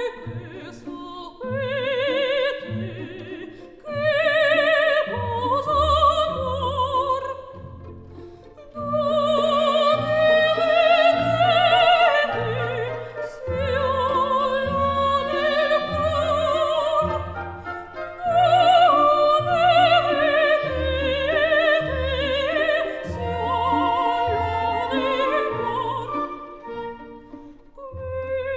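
Background music: an operatic singing voice with wide vibrato over orchestral accompaniment.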